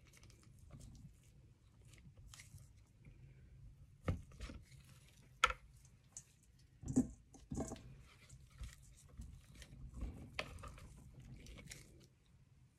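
A spoon scraping and scooping solid coconut oil out of a plastic tub, a faint crunchy scraping broken by scattered sharp knocks and clinks as the spoon and lumps meet the tub and a stainless-steel mixing bowl.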